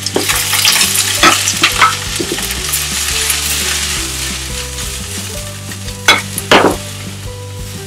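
Sliced onion, carrot and pepper sizzling in hot olive oil in a wok, stirred and tossed, with a few sharp clatters in the first two seconds and two more about six seconds in. The sizzle eases off a little as the vegetables settle in the pan.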